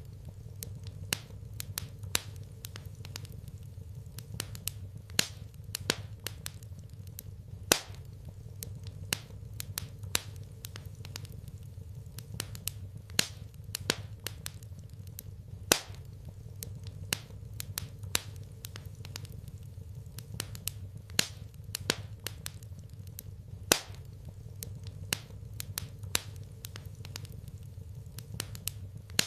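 Wood fire crackling in a fireplace: irregular sharp pops and snaps, a few of them loud, over a low steady rumble.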